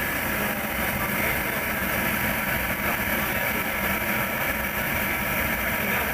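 Diesel-fired forced-air space heater running steadily with its burner lit and fan blowing.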